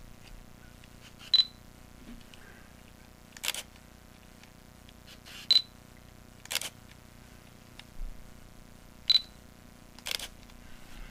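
Fujifilm X-E3 mirrorless camera autofocusing a lens through a Fotodiox Vizelex Fusion smart adapter. Three times, a short high focus-confirmation beep signals that focus has locked, and a shutter click follows a second or two later.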